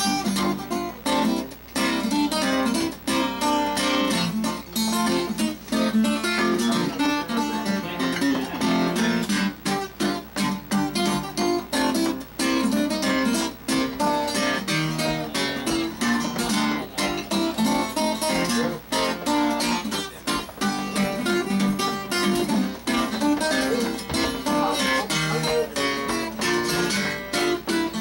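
Steel-string acoustic guitar playing the instrumental intro of a country-blues rag, picked notes over a bouncing bass. Sharp clicking taps keep the beat throughout.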